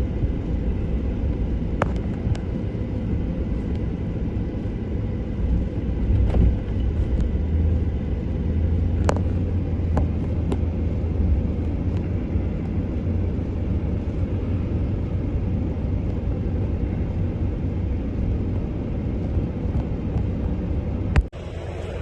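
An engine running steadily with a low rumble that swells for a few seconds about six seconds in, with a few light knocks and clicks over it; the sound cuts off abruptly near the end.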